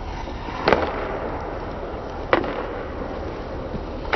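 Three sharp cracks of hockey sticks striking a puck on the ice, about a second and a half to two seconds apart, over a steady rink hiss.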